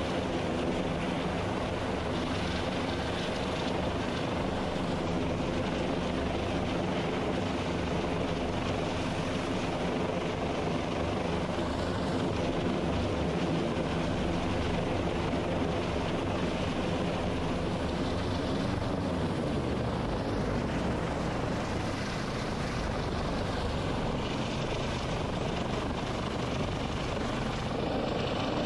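MH-65 Dolphin helicopter running steadily, its twin turboshaft engines and rotors giving a continuous drone whose pitch dips slightly about twenty seconds in.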